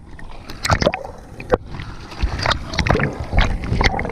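Sea water splashing and sloshing in irregular, uneven strikes over a steady low rumble.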